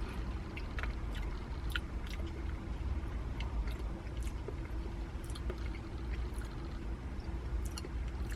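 A person chewing a mouthful of ice cream with cake pieces, with small wet mouth clicks scattered throughout, over a steady low hum.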